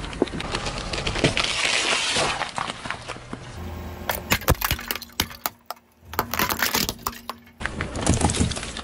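Car tyre rolling over objects on asphalt in quick succession: gritty crunching with small pops, then a white plate snapping and breaking under the wheel in a run of sharp cracks, then more crushing from about eight seconds in.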